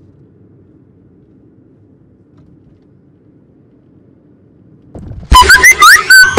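Low, steady car-cabin rumble for about five seconds. Then a sudden, very loud burst of electronic chirps and rising whistle-like tones cuts in.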